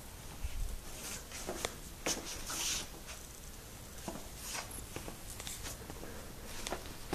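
Scattered rustling and light clicks of clothing and a hand-held phone being moved close to the microphone, the loudest rustle about two and a half seconds in.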